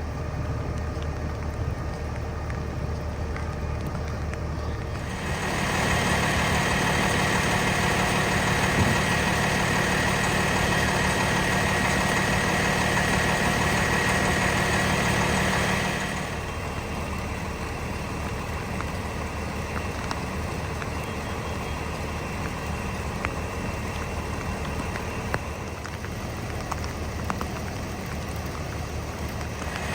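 Fire truck's diesel engine running steadily. It gets louder about five seconds in and drops back about sixteen seconds in.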